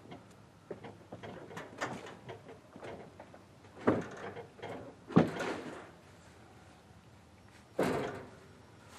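A series of knocks and thuds, such as lumber being handled on a wooden floor. Three heavier thuds come about four, five and eight seconds in, among lighter clatter.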